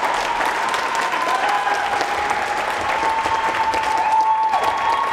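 Crowd applauding, dense and continuous, with a steady high tone held through it.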